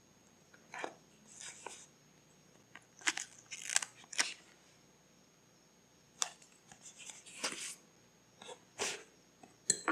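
Paper being handled for a scrapbook journal: short, scattered rustles and taps with quiet gaps between them.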